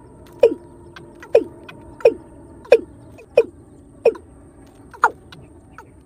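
Watercock (kora) calling: a steady series of short, low, falling notes, about one every two-thirds of a second.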